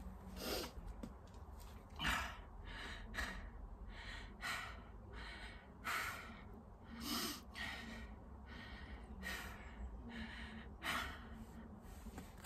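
A man breathing hard, with heavy gasping breaths about every one to one and a half seconds: winded from a hard dumbbell cardio circuit.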